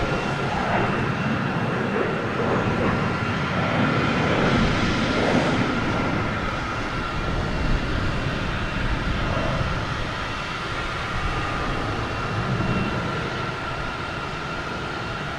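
Jet airliner engines running: a steady rushing noise with a thin high whine, loudest about four to five seconds in and easing slightly toward the end.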